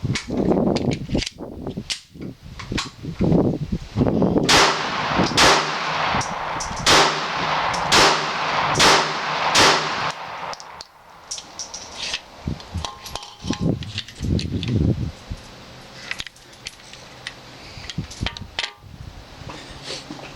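Glock 42 .380 semi-automatic pistol firing a string of shots about a second apart, the loudest run starting about four seconds in, followed by quieter clicks and knocks.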